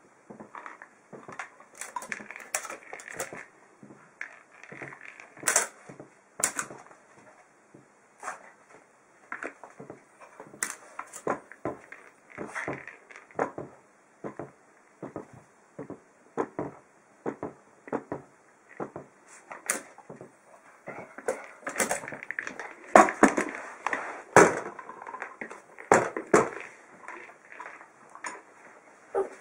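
Irregular run of short knocks, taps and clatter, several a second, loudest near the end: a small dog batting and nosing a ball about on a metal chest top.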